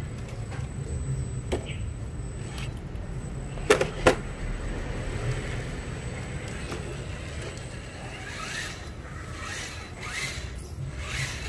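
Radio-controlled model truck running, its small electric drivetrain and gears making mechanical noise over a low rumble. Two sharp knocks come a little under four seconds in, and several short whirring bursts follow in the last few seconds.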